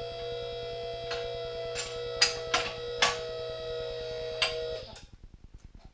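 QuickJack BL-5000SLX portable car lift's hydraulic power unit running with a steady hum while the lift frames move, with six sharp metallic clicks over it, then cutting off about five seconds in.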